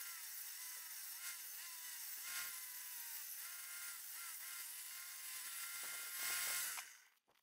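Homemade circular saw running with a steady whine, its pitch dipping again and again as it rips a thin strip off a wooden bar. The sound swells briefly near the end, then cuts off abruptly.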